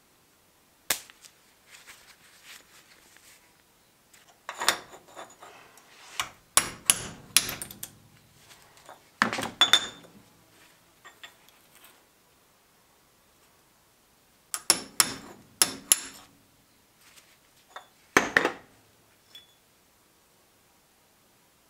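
Metal-on-metal clinks and knocks from a screwdriver prying worn seals out of a vehicle's axle bearing flange, the flange knocking against a steel bench vise. They come in several short bunches with pauses between.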